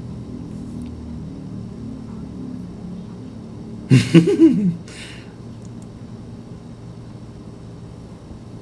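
A man's short laugh about four seconds in, falling in pitch over a few quick pulses, over the soft low background of the anime episode's audio.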